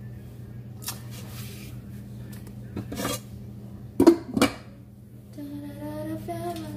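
Glass lid on a metal cooking pot clinking and clattering as it is lifted off and set back on, with light clinks before the loudest knocks about four seconds in. A steady low hum runs underneath, and a tune of stepped notes starts near the end.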